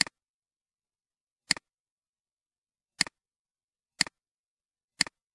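Computer mouse button clicking five times, each click a quick double tick of press and release, with silence between.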